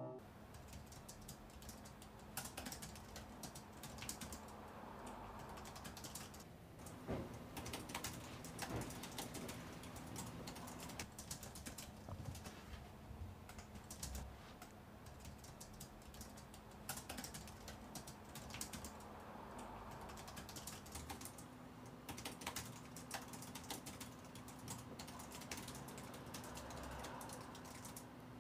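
Quiet typing on a computer keyboard: irregular runs of key clicks, over a faint steady low hum.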